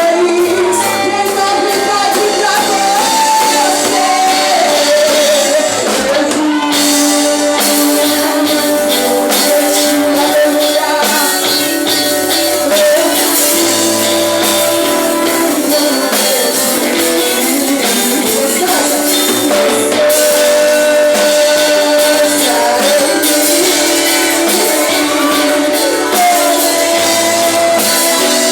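Christian worship song: a singer over a band with drums and percussion, playing continuously.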